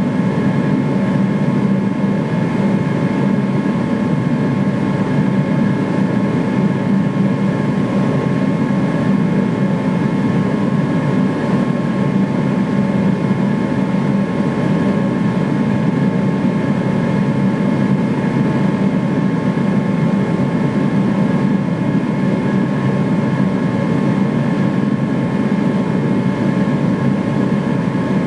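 Multi-burner gas forge running: a loud, steady low rush of burning gas with faint steady whistling tones above it, unchanging throughout.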